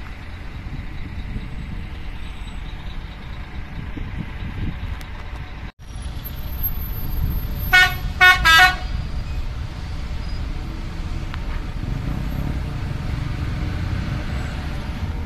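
Steady rumble of traffic and idling engines, with a vehicle horn giving three short toots a little past the middle.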